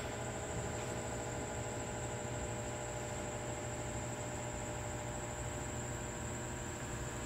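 Steady electrical hum made of several held tones, with a thin high-pitched whine above it and light hiss.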